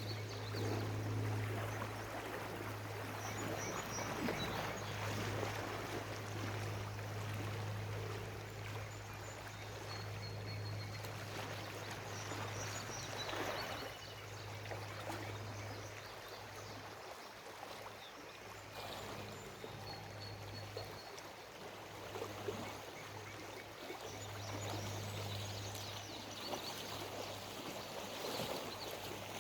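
Shallow river water running over gravel, an even rushing wash, with a steady low hum that drops out for a few seconds in the middle and returns near the end.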